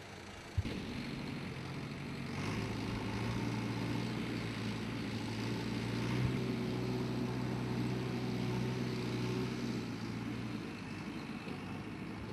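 JCB backhoe loader's diesel engine running steadily as the machine drives. It starts about half a second in, grows louder a couple of seconds later and eases off near the end.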